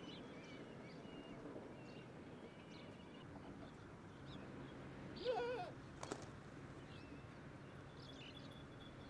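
Faint high bird chirps over outdoor background noise, with one wavering bleat from livestock about five seconds in and a sharp click soon after.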